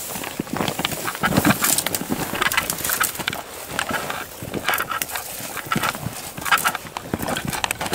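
Footsteps crunching on rocky, gravelly ground, with dry brush scraping and rustling against clothing as people walk uphill through desert scrub. The steps come as irregular crunches with no steady rhythm.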